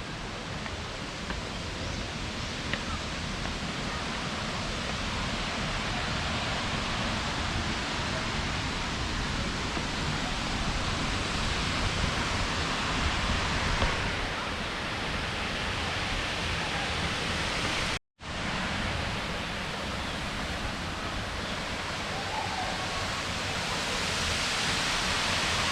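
Waterfall's steady rushing roar, getting gradually louder toward the end, with a brief break in the sound about eighteen seconds in.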